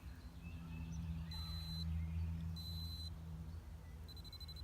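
Electric dog fence collar giving high warning beeps as it nears the boundary wire: three beeps of about half a second each, the last broken into rapid short pulses, over a steady low hum.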